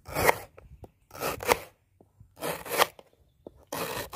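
Kitchen knife slicing through a fresh young bamboo shoot on a wooden cutting board, cutting it into rings: four cuts about a second apart.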